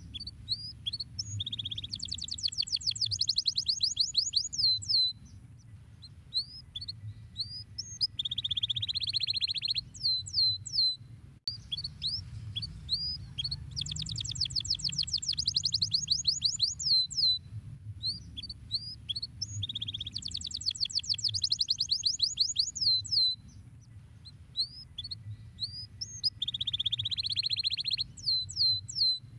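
Domestic canary singing: rapid trills of quick descending whistled notes alternate with buzzy rolled phrases, in bursts separated by short pauses. A faint low hum runs beneath.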